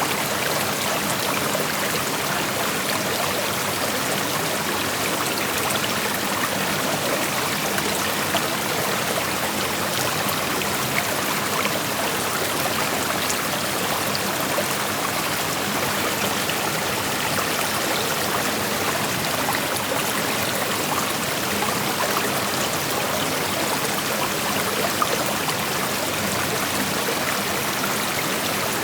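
Creek water flowing over rocks: a steady rush with small splashes and trickles scattered through it.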